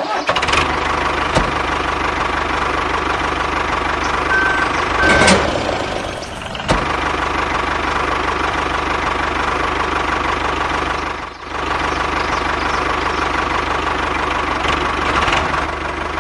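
A vehicle engine running steadily at a constant pitch, dipping briefly twice.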